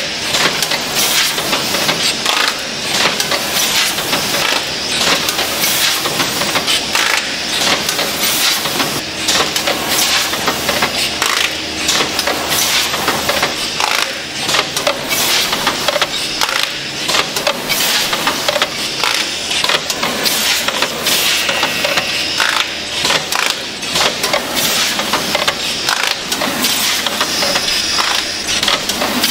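Leepack RT-110 ten-station automatic pouch-packing machine running: a continuous, busy metal clatter of many irregular clicks and knocks over a steady mechanical noise.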